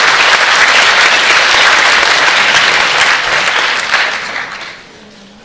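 A large audience applauding steadily, then dying away about four and a half seconds in.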